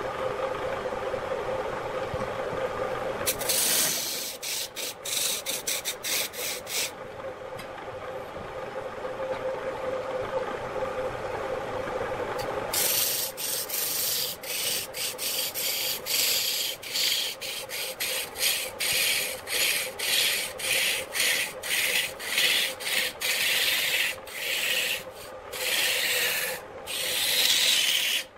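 Belt-driven wood lathe running with a steady motor hum while a hand-held turning tool cuts the spinning wooden blank with a harsh rasping scrape. The cutting comes in short repeated passes, a few of them a few seconds in, then quick back-and-forth strokes through the second half.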